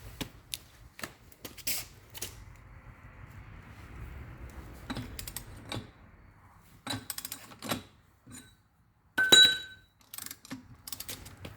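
Irregular metal clicks and knocks of a socket and breaker bar on a tight lug bolt, as it is worked loose. About nine seconds in comes a sharp metal clink that rings briefly.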